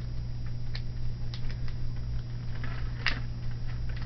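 Roll of hardening casting-tape wrap crackling in small irregular clicks and ticks as it is pulled off and wound around a prosthetic socket, with one louder crackle about three seconds in. A steady low hum runs underneath.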